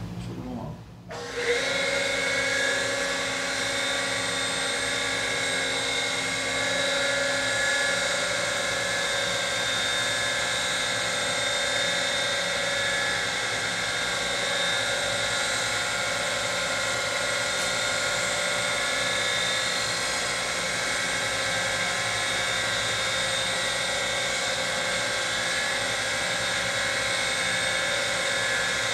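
Surface grinder and its rotary phase converter starting up about a second in, then running steadily with a high-pitched whine.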